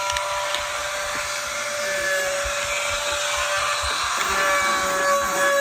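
Small electric power tool running steadily with a high motor whine. Its pitch dips slightly about halfway through.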